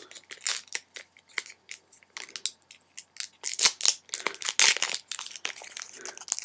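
Plastic and foil packaging of a Pokémon trading-card sample pack crinkling and tearing as it is opened by hand, in irregular crackles that get louder and busier about halfway through.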